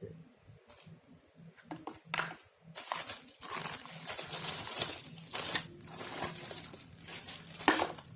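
Handling noises: rustling and scraping, as of plastic or cardboard packaging being moved, with a few knocks and a sharp knock near the end, over a faint steady low hum.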